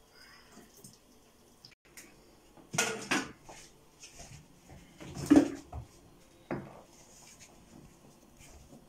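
Kitchen utensil and dish clatter: a spoon or ladle knocking and scraping against a frying pan and bowl while pasta is stirred and dished up. It is a handful of sharp clinks, a pair about three seconds in and the loudest a little after five seconds.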